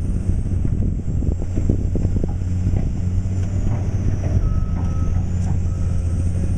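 Caterpillar excavator's diesel engine running steadily under work, with scattered clanks and knocks. A warning alarm beeps twice, about a second apart, in the second half.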